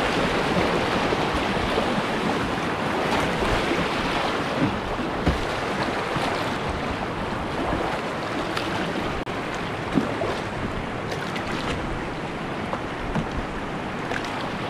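Whitewater rapids rushing steadily, with a few brief knocks along the way.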